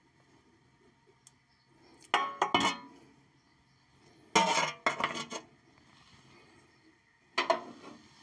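Metal tools clinking against a round metal drip pan half full of drained oil, in three short clusters of ringing knocks about two, four and a half, and seven and a half seconds in.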